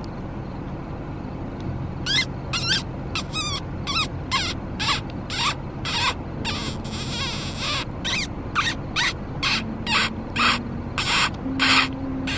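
An animal's short, high, squeaking calls, repeated at an uneven two to three a second from about two seconds in, over a low steady hum.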